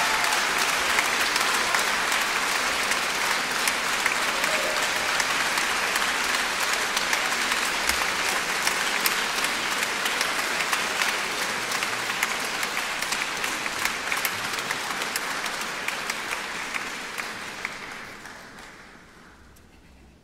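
Concert-hall audience applauding, a dense patter of many hands that holds steady and then dies away over the last few seconds.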